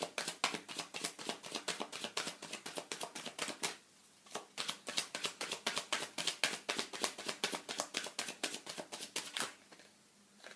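A deck of tarot cards being shuffled by hand: a fast run of crisp card flicks, a short pause about four seconds in, then a second run that stops about a second before the end.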